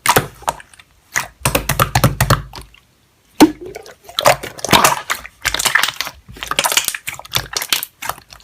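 Slime being squeezed and worked by hand: an irregular run of wet clicks, crackles and squelches, in clusters with short gaps.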